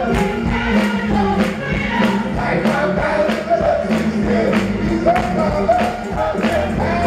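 Gospel choir singing in full voice over a steady, sharp percussive beat that falls about every half second.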